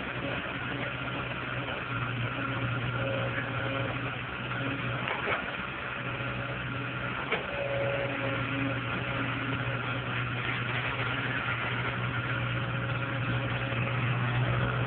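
Tracked hydraulic excavator's diesel engine running steadily while the arm and bucket work, with a higher tone that comes and goes. There are two sharp knocks, about five and seven seconds in.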